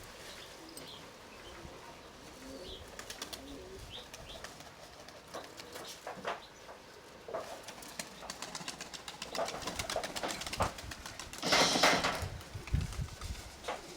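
Young Nikolaev pigeons cooing and stirring, with scattered clicks and a loud burst of wing flapping lasting about a second near the end.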